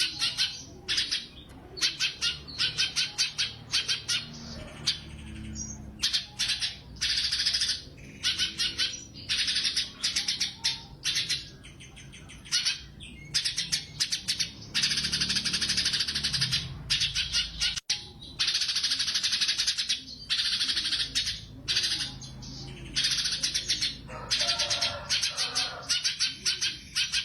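Cucak cungkok leafbird singing hard: fast, rattling trilled phrases fired off one after another with only short breaks between them.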